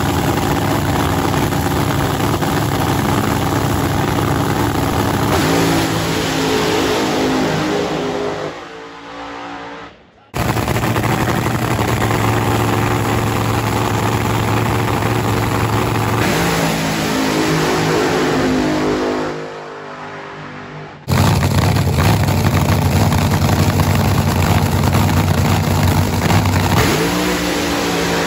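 Supercharged, nitromethane-burning V8 of a fuel altered drag car running loud at full throttle, in three long blasts split by abrupt cuts. The note falls away at the end of each blast as the car pulls away down the strip.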